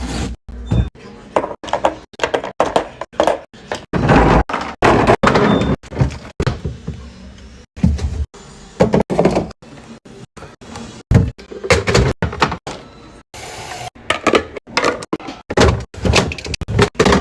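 Restocking sounds: items and plastic containers being set down, opened and slid into place, a dense run of sharp clicks, knocks and thunks with brief sliding noises between.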